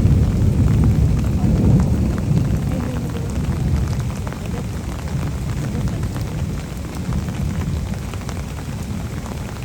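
A roll of thunder rumbling low and slowly dying away, over steady rain with scattered raindrop ticks.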